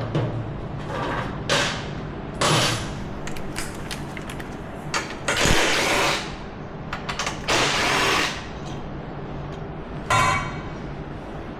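Hand tools working on the Nerf bar bolts of an ATV: several short bursts of metal scraping, clicking and rattling over a steady low hum.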